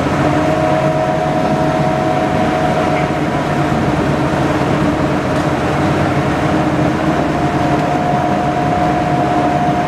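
Army Duck (WWII DUKW amphibious vehicle) engine running steadily as the boat cruises on the river: a loud, even drone with a steady whine over it.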